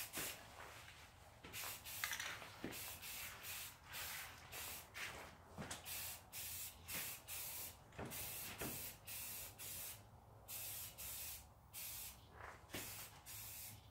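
Aerosol can of primer spraying in many short hissing bursts, about one to two a second, with brief gaps between passes.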